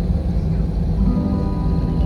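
Steady low rumble inside an airliner cabin as it taxis after landing. About a second in, a few steady held tones come in over the rumble.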